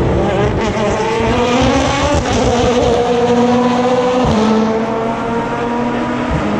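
Race car engine accelerating hard, its pitch rising steadily, then dropping sharply as it shifts up a gear about four seconds in.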